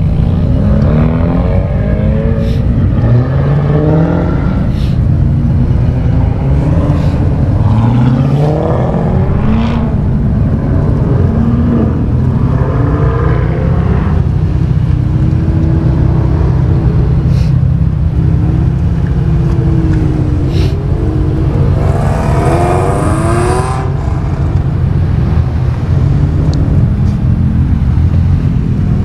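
Several cars pulling out one after another and driving past close by, their engines revving up and down over a constant low rumble. About 22 seconds in, one pass comes with a louder, hissier rush of noise for a couple of seconds.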